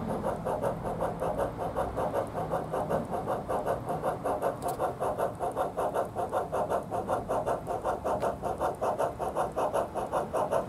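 Bachmann Climax G-scale geared steam locomotive's Soundtraxx Tsunami sound decoder playing rapid, even steam chuffs through the model's speaker as it runs.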